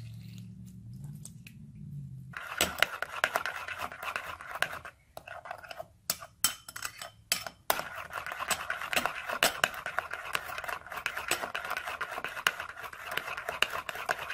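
Metal spoon beating shrimp-paste dipping sauce in a ceramic bowl: rapid clinking and scraping against the bowl to whip the sauce frothy. The beating starts about two seconds in, after a low hum, and pauses briefly in the middle.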